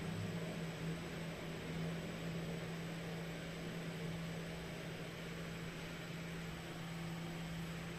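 Steady low electrical hum over an even background hiss: room tone.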